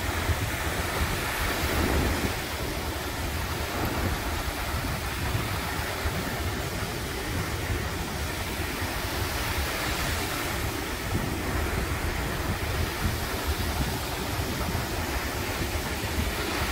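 Surf breaking and washing up a sandy beach, with wind rumbling on the microphone.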